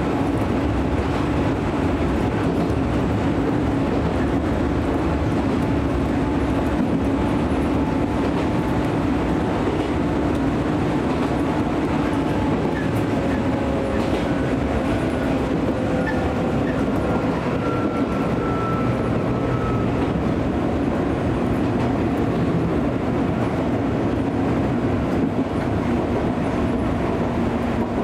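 Electric train running between stations, heard from inside the front car: a steady rumble of wheels and running gear with a steady low hum. Faint thin tones slide slowly in pitch around the middle.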